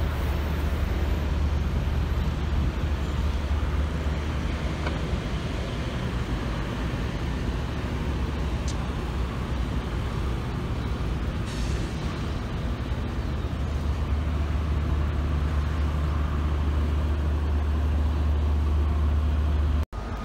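Steady low rumble of a motor vehicle on the road, engine and tyre noise, with a brief dropout near the end.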